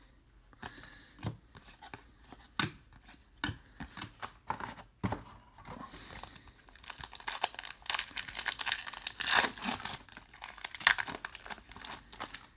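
Light taps and clicks of trading cards being handled and set down, then a Topps Star Wars Galaxy card pack's wrapper being torn open and crinkled for several seconds.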